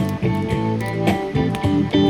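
Blues guitar music: an instrumental passage of picked guitar notes over sustained low notes, with no singing.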